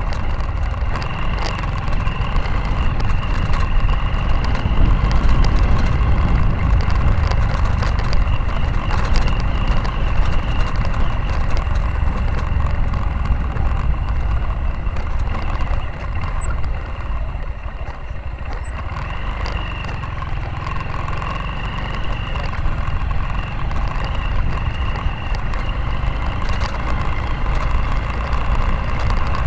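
Motorcycle engine running steadily while riding a rough, rutted dirt road, with scattered knocks and rattles from the bumps. The engine eases off briefly a little past halfway, then picks up again.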